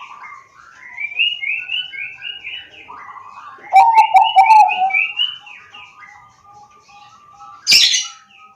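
Bangkok-type zebra dove (perkutut) singing its staccato song: a run of short rising notes, a louder burst of clipped notes about four seconds in, then a long trilled note held for a couple of seconds. A brief loud noise cuts across it near the end.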